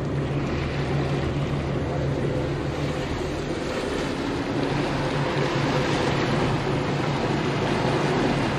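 Steady drone of a 1999 Carver 504 motor yacht's engines under way, with the rush of water along the hull and in the wake.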